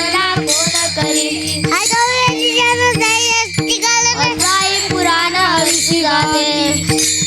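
Devotional bhajan music: a young boy's voice carries a gliding, ornamented melody over steady held drone notes, with small cymbals striking a regular beat.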